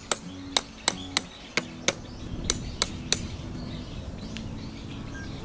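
Sharp metallic knocks, about three a second, stopping about three seconds in: steel tent stakes being struck to loosen them while a canvas tent is taken down.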